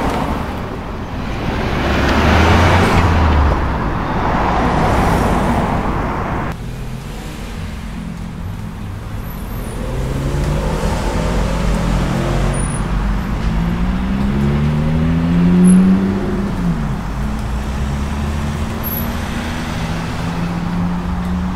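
Sports cars driving off and accelerating past, one after another. The loudest pass comes about two to three seconds in. Later an engine revs up, rising in pitch to a peak about sixteen seconds in, then runs more steadily.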